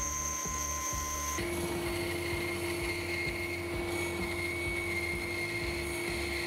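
Homemade band saw running, its blade cutting a birch plywood board. It is a steady whine, and its pitch changes abruptly about a second and a half in.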